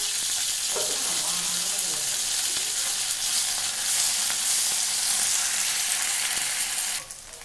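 Sliced onions and ginger-garlic paste sizzling in hot oil in a pan while being stirred with a steel spatula: a steady frying hiss that drops away sharply near the end.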